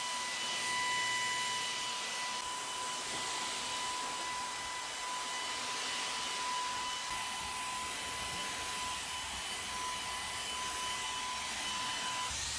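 Electric paint sprayer running steadily while spraying marine metal primer: an even rush of air with a steady high whine.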